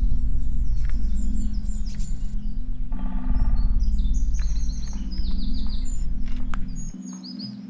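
Several woodland songbirds singing, with repeated high chirps and trills, over a heavy low rumble that drops away about seven seconds in.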